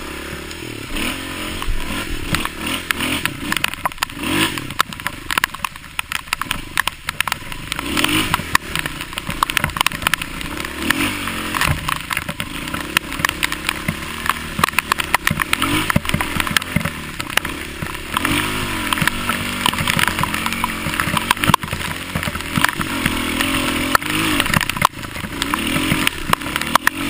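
Dirt bike engine revving up and easing off over and over as it is ridden along a rough trail, its pitch rising and falling. Frequent sharp knocks and rattles come from the bike jolting over the ground.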